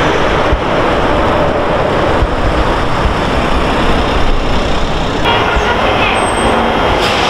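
Vehicle engine and road noise as fire-department vehicles drive off. A small red mini fire truck passes close by, over a steady low rumble. The sound changes abruptly about five seconds in.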